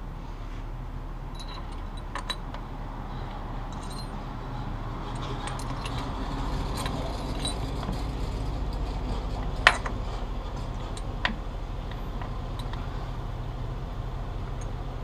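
Light metallic clinks and taps of steel shift forks and the shift drum being fitted by hand into a 1975 Honda CB750 engine's lower crankcase, over a steady low hum. The sharpest clink comes a little over halfway through, with another about a second and a half later.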